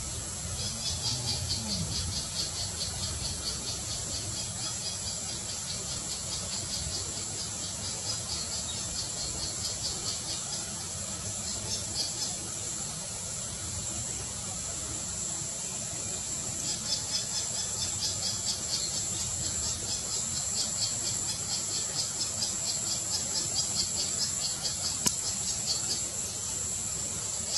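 Insects calling in a fast, even pulsing buzz over a steady high-pitched whine. The pulsing runs for a long stretch, stops for a few seconds around the middle, then starts again until shortly before the end.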